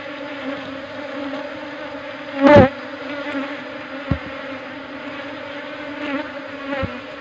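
A cluster of queenless honeybees buzzing with a steady low hum as they are disturbed and scooped into a plastic jar. A sharp knock comes about two and a half seconds in, with lighter thumps later.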